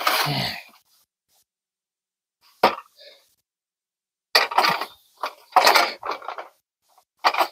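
Aluminium awning roller tube sections being handled and pushed together: a few short scraping, clattering bursts with silence between them, and a sharp click about two and a half seconds in.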